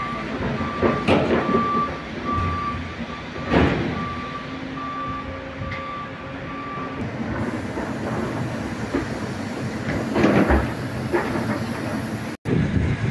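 Koleje Mazowieckie EN57AKM electric multiple unit pulling in along the platform, with a steady rumble of the train. A short high beep, like a reversing alarm, repeats about every 0.7 s and stops about seven seconds in, and a few knocks stand out.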